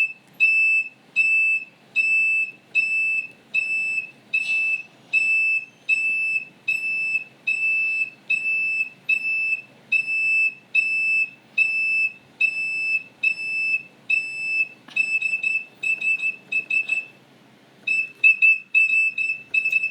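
Electronic keyboard on its flute voice playing one high note over and over in short, evenly spaced beeps, about one every three quarters of a second, imitating a smoke alarm's chirp. About three quarters of the way through, the notes come quicker in bunches, with a short pause before the last run.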